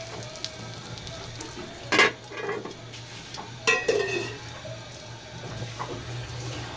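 Aluminium pan lid knocking against the frying pan twice, about two seconds in and again a couple of seconds later, the second knock with a brief metallic ring. Faint sizzling and a low steady hum run underneath.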